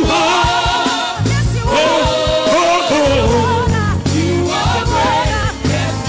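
Gospel worship song: a singing voice with vibrato, held notes and runs over a band with a sustained bass line.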